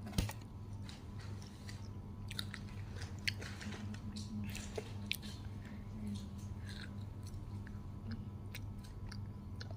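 A person chewing and biting McDonald's fast food close to the microphone: scattered crunchy bites and mouth clicks over a steady low hum.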